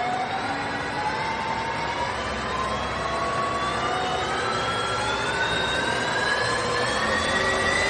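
Huvema HU 360×1000-4 VAC metal lathe running, its whine rising slowly and steadily in pitch as the spindle speed is turned up, over a low mechanical rumble.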